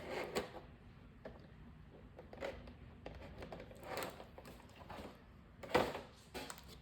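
Handling of a replacement MacBook Air battery: a few short rustles and light knocks, with one at the start and the loudest near the end.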